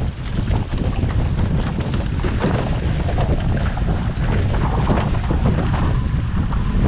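Wind buffeting the microphone over the rushing and splashing of water along a Class A catamaran's hull under sail, with many short splashes of spray.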